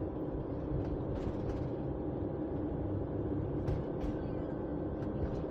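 Car driving at road speed heard from inside the cabin: a steady rumble of engine and tyres with a low hum.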